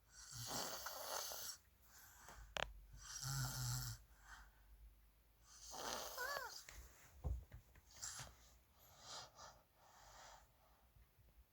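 A sleeping person snoring, with a rasping breath about every three seconds. One snore carries a low hum and another a brief whistling note.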